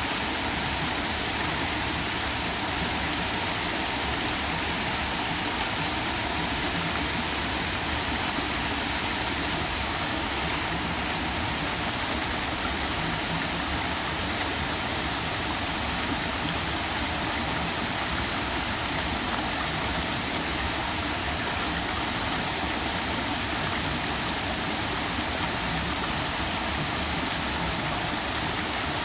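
Small waterfall pouring over rock ledges into a shallow pool: a steady, unbroken rush of falling water.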